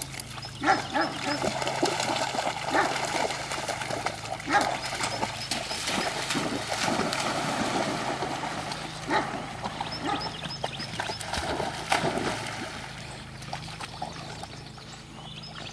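Dogs splashing through pond water as they wade in and swim after thrown toys, with several sharp splashes and short dog vocal sounds mixed in.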